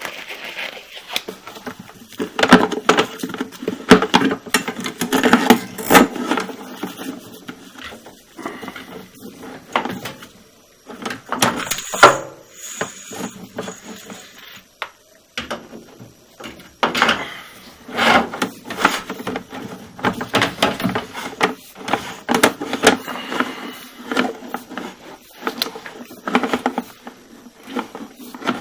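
Sewer inspection camera's push cable being fed off its reel into a clogged main drain line: irregular rattling, clicking and rubbing in two busy stretches.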